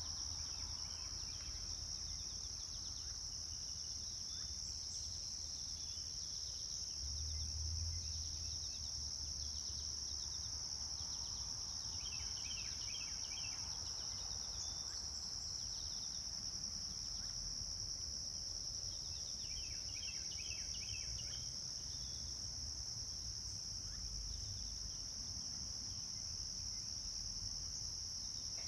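A steady, high-pitched insect chorus, with two short runs of rapid chirps about twelve and twenty seconds in, over a low rumble.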